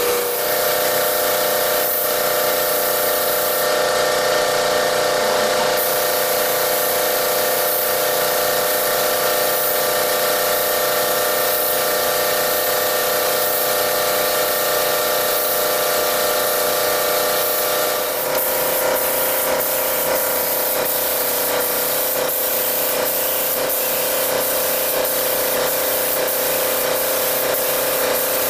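Compressed-air spray gun hissing steadily as it sprays finish over a wooden slab, with a steady machine hum underneath. About two-thirds of the way through, the hum changes pitch and faint ticks come in about twice a second.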